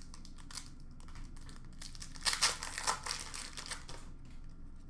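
Crinkling of foil trading-card pack wrappers and the rustle of cards being handled, with a louder run of crinkling about two and a half seconds in.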